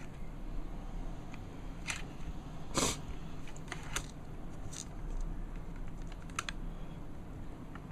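Scattered light clicks and taps of soldering tools against a circuit board as a component is worked loose, with one louder, longer click about three seconds in.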